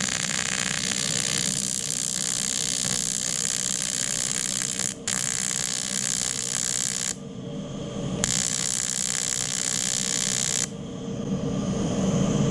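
AC TIG welding arc from an Aurora PRO INTER TIG 200 AC/DC PULSE at its minimum 15 A, fusing 0.2 mm aluminium drink-can wall: a steady hiss struck in three runs, about five seconds with a momentary break, then about two seconds, then about two and a half seconds, cutting off about ten and a half seconds in.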